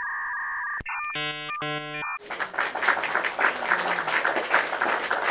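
Cartoon quiz sound effects: a steady electronic two-tone beep, then a double buzz like a wrong-answer buzzer. After that come about three seconds of noisy, crackling, applause-like shimmer.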